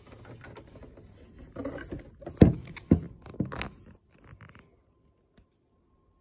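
Handling of a Cricut Maker 3 cutting machine's plastic body as it is tipped over: scraping and rustling, then about four loud knocks in quick succession, the first the loudest.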